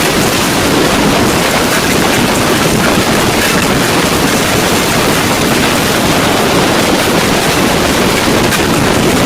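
Steady, loud rushing noise from a moving boat: wind on the microphone mixed with water and motor noise.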